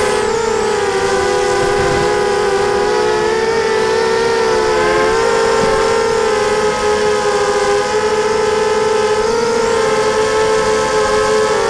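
Electric motors and propellers of a 230-size FPV racing quadcopter whining in flight: several close tones that waver and shift in pitch together as the throttle changes.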